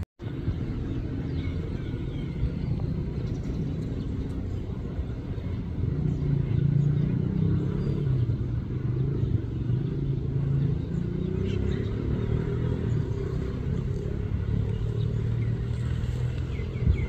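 Diesel train engine running with a steady low rumble, growing louder about six seconds in.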